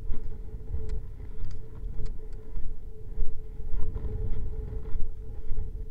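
Strong wind buffeting the microphone in an uneven low rumble, with a faint steady hum and a few light ticks.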